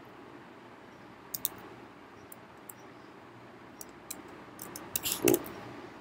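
Keystrokes on a computer keyboard: scattered single key clicks a second or so apart, then a quicker, louder run of presses about five seconds in, over a faint steady hiss.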